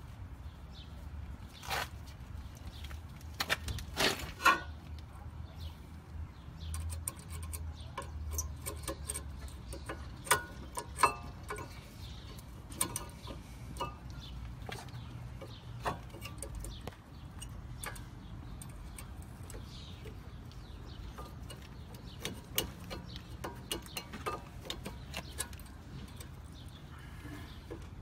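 Scattered metallic clicks and knocks of disc brake pads and caliper hardware being handled and fitted by hand, over a steady low hum.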